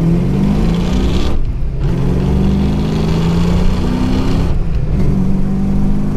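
Fox-body Mustang's 5.0 V8 under hard acceleration, revs climbing through the gears of its manual gearbox. There are two quick upshifts, about a second and a half in and again near four and a half seconds, each dropping the revs before they climb again.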